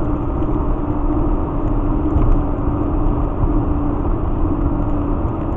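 Steady road and engine noise heard from inside a vehicle's cabin while cruising at highway speed, with a steady low hum running under it.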